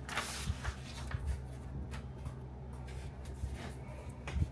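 Sheets of paper rustling and sliding as they are laid onto a light box's top, with a few light taps, over a steady low hum.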